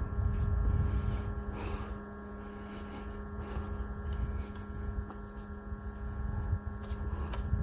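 Small personal evaporative air cooler's fan motor running with a steady electric hum, its airflow making an uneven low rumble.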